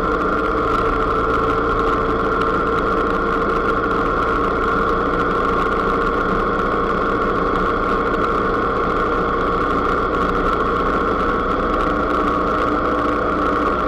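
Motor vehicle engine running steadily while cruising along a road: an even drone with a constant high whine that neither rises nor falls.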